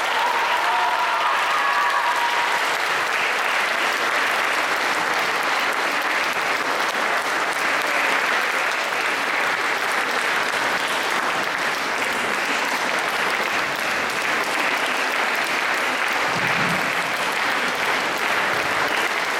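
Audience applauding steadily at the close of a concert, sustained without a break.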